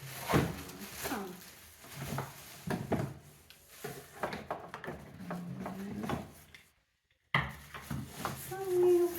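Parts of a baby dining chair being handled and taken out of their box: a run of knocks, clunks and rubbing, with a short cut-out about seven seconds in.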